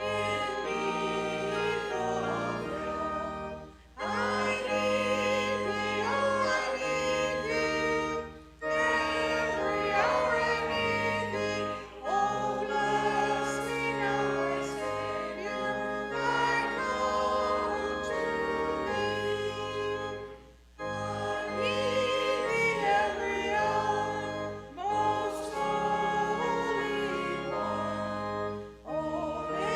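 Voices singing a hymn together with instrumental accompaniment, in sustained phrases separated by short pauses.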